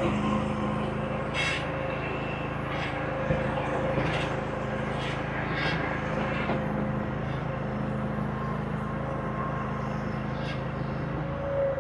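Small diesel engine of a compact earthmoving machine running steadily under work, with a steady whine over it. Several short clanks or scrapes come in the first half.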